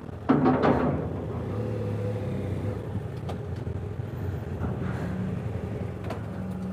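BMW F800GS parallel-twin engine running at low revs as the motorcycle rolls slowly onto a ferry deck. There is a short, louder clatter about half a second in.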